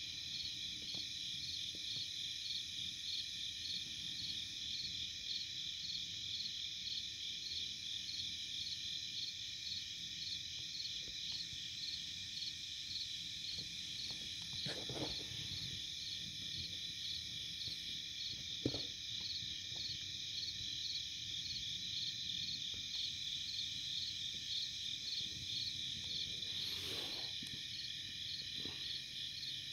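Night chorus of crickets and katydids: a steady, high-pitched trilling with a fast, regular pulse, with a single sharp click partway through.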